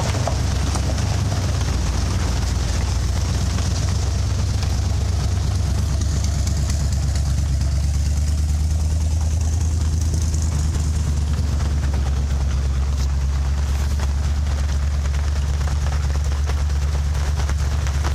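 A steady, unbroken low rumble, engine-like, under an even hiss of falling rain.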